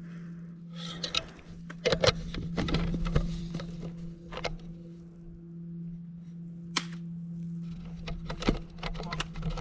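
A pump-action spring BB shotgun fired twice, each shot a sharp pop, about five seconds apart, with smaller clicks and handling noise in between. A steady low hum runs underneath.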